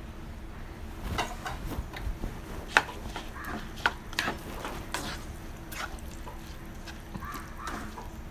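Wooden spatula stirring boiled black chickpeas through a thick masala in a non-stick pan, making irregular scrapes and knocks against the pan about once a second.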